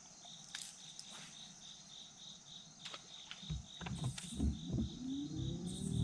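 Insects chirping in a steady, even rhythm of about three pulses a second, over a constant high insect buzz. From about halfway in, low, uneven rumbles and a hum that rises and then falls join in.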